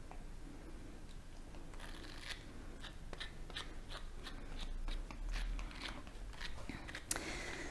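A Flexkarda slicker brush drawn in quick repeated strokes through a maltipoo's curly coat, each stroke a short rasp. The strokes come about two to three a second, starting about two seconds in.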